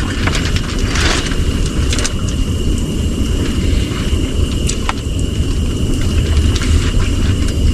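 Steady low rumble with a thin, steady high whine above it and a few light clicks.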